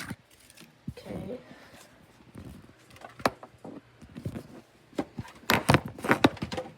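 Kitchen things being handled: scattered clicks and knocks, with a quick run of sharper clatters about five and a half seconds in.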